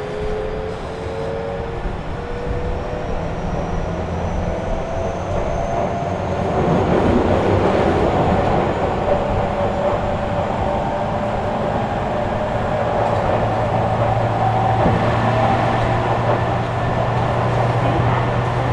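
Running sound heard inside a Tobu 50000-series commuter train car. The traction motor whine rises in pitch as the train picks up speed, then holds steady over the rumble of wheels on rail. The rumble grows louder about a third of the way in.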